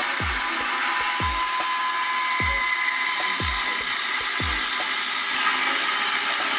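Homemade metal-cutting band saw, its blade running dry through a square steel tube with a steady rasping hiss. Repeated low thumps sound underneath.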